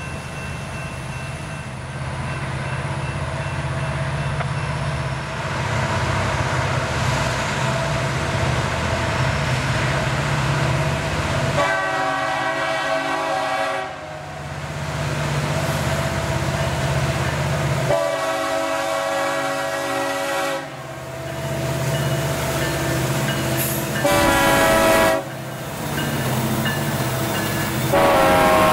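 Freight train's diesel locomotives rumbling louder as they approach and pass close by. The lead locomotive's air horn sounds long, long, short, long: the grade-crossing signal.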